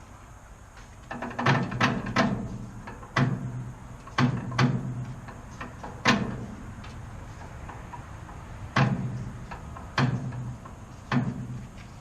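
Metalwork on a steel hitch frame: about eight short, sharp bursts in uneven spacing, each starting suddenly and fading within about a second.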